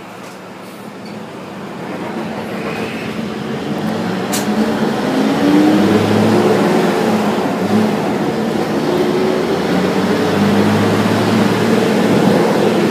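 A vehicle running, with a low hum and wavering motor tones, getting louder over the first six seconds or so and then holding steady.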